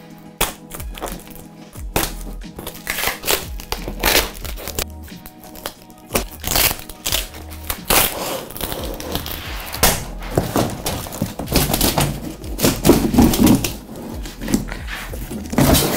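Background music with a steady low beat, over the handling of a large cardboard shipping box: repeated knocks, thunks and rustles as its plastic strapping and cover are cut and the box is moved and tipped over.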